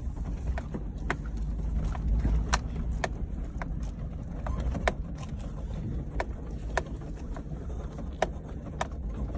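Vehicle driving over rough farm ground: a steady low rumble with frequent irregular rattles and knocks from the body.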